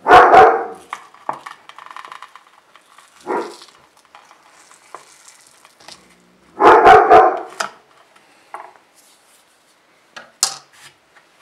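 A dog barking: two loud barks, one at the start and one about seven seconds in, with a softer one between. In the gaps, faint scraping as a thin blade pries a 3D-printed plastic template and its cloth tape off a white oak board.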